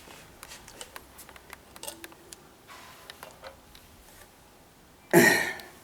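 Light plastic clicks and ticks of ink tubes and their fittings being handled at the printer's ink bottles, with a brief soft rustle about three seconds in and one short, louder knock a little over five seconds in.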